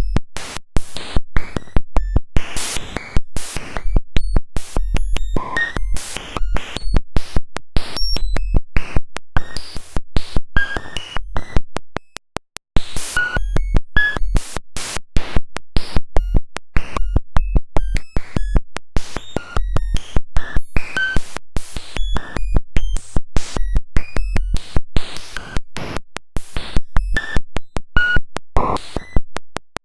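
Harsh synthetic sound made by writing a cellular automaton's normalized population ratio straight into the waveform as samples: a fast, irregular string of clicks, buzzes and noisy bursts with brief high tones. It drops out for a moment about twelve seconds in.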